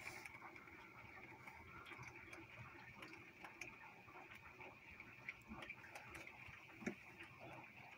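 Faint, irregular ticking of raindrops striking the window glass, with one louder tap about seven seconds in, over a low steady hiss.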